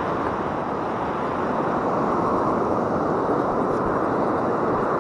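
Steady noise of wind and breaking surf on an open beach, even and unbroken.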